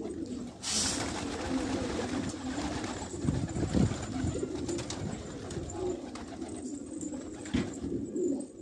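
A flock of domestic pigeons cooing continuously, with the flutter of wings as birds land, including a short burst of flapping about a second in.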